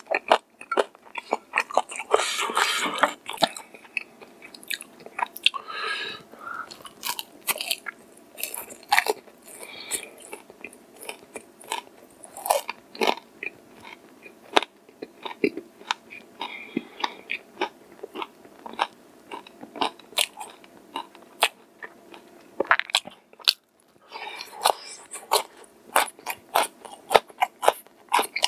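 Close-miked chewing of crispy fried chicken (tiger chicken) with many short, sharp crunches.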